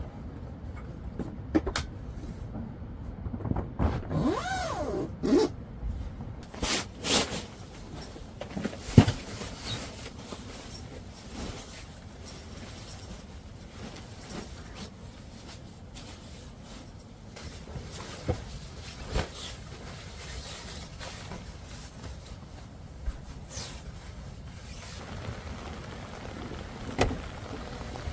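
A string of knocks, clicks and scrapes, as of things being handled and set down, over a steady hiss. The loudest knock comes about nine seconds in, and a short squeak that rises and falls comes around four to five seconds in.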